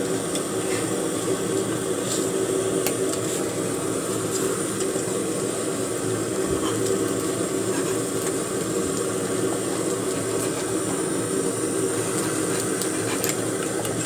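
Steady mechanical hum, like a running fan, with a few faint scattered clicks.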